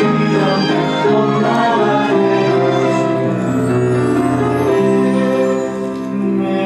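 Instrumental music with long held chords that change about once a second or two.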